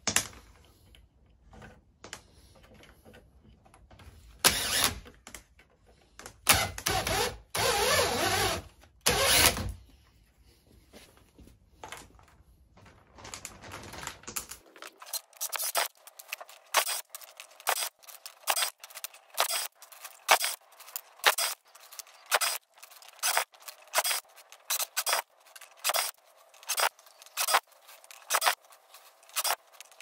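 Cordless drill driving a bench wire-stripping machine in a few short runs as copper cable is fed through, the longest lasting about two seconds. After the halfway point comes a long series of short, light clicks at roughly two a second.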